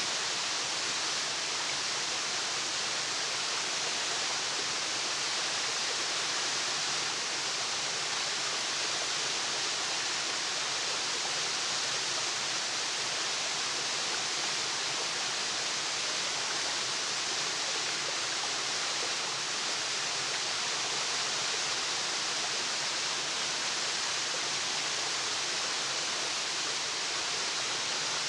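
Waterfall: a steady rush of falling water, even and unchanging, with most of its energy in the hiss.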